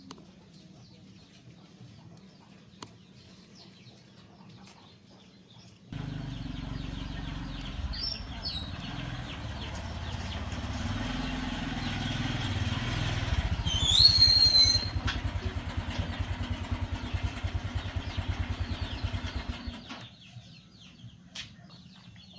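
A small engine running for about fourteen seconds with a low, even pulsing, starting suddenly after a quiet stretch and stopping near the end. About halfway through, a brief high-pitched rising squeal is the loudest sound.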